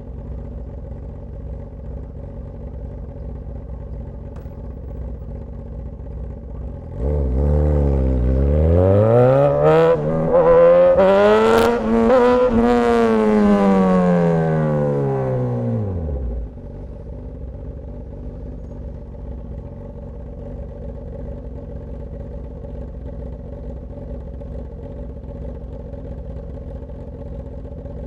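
Straight-piped Suzuki GSX-S1000 inline-four engine. It runs low and steady, then about seven seconds in it is opened up loud, its pitch climbing with a few sharp cracks. The pitch then sinks smoothly and the loud note cuts off suddenly, leaving the low steady running again.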